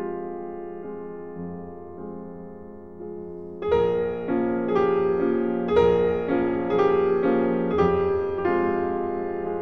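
Soundtrack piano music. A few soft held notes die away, then about four seconds in a louder passage of struck notes and chords follows at an even, unhurried pace.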